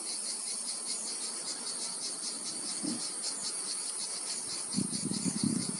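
Steady, high-pitched chirring of insects in a rapid even pulse. Near the end a louder, low rustling comes in.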